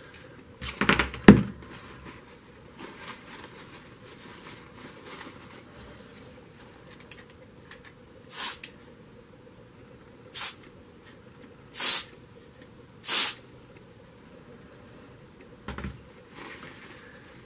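Four short hisses of an electrical contact cleaner aerosol sprayed through its extension straw onto the contacts of a rusty switch assembly, to clean them. A brief clatter of handling comes about a second in.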